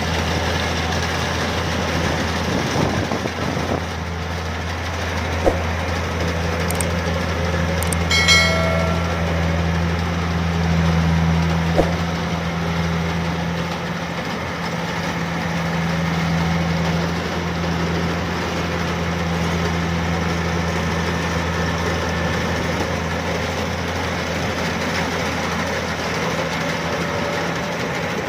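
Rice combine harvester's engine running steadily with a continuous low drone, a few brief knocks and a short squeak breaking through.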